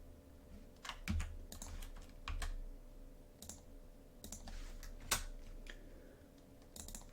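Irregular keystrokes and clicks at a computer keyboard, a dozen or so short taps with uneven gaps, over a faint steady hum.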